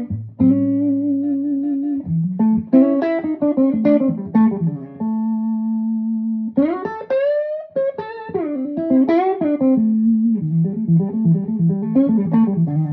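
A 1960 Gibson ES-345 electric guitar played through a Marshall JTM45/100 Super 100 valve amplifier, in a lead phrase of picked notes and sustained held notes. About seven seconds in there is a wide upward string bend.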